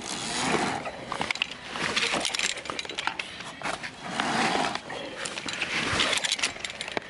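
A climber breathing hard in repeated heavy breaths every second or two, while carabiners and other metal climbing gear clink against each other.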